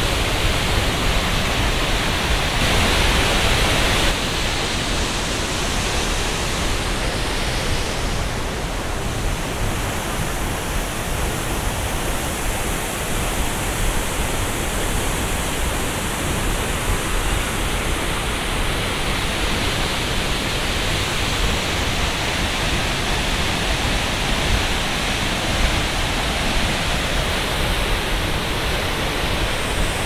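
Steady rushing of a 90-metre waterfall's falling water, slightly louder for the first four seconds.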